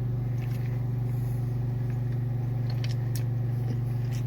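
Steady low hum, like an engine idling, with a few faint short clicks as the wrap is handled and bitten.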